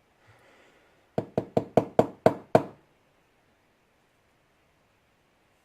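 A quick run of about eight sharp knocks, a lock being rapped to shake out a stuck spring from its fifth pin chamber.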